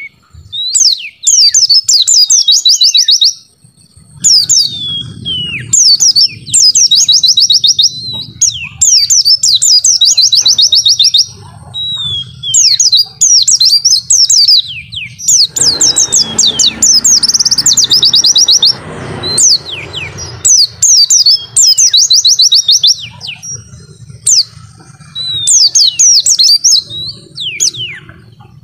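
White-eye (pleci) singing in full voice: burst after burst of rapid, high, trilled chattering, each about a second long, following one another with hardly a break. A rushing noise runs under the song for about four seconds in the middle.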